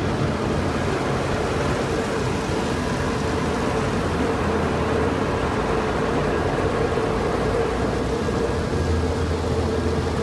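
Car wash machinery running: a continuous rushing noise with a steady hum and a low rumble underneath.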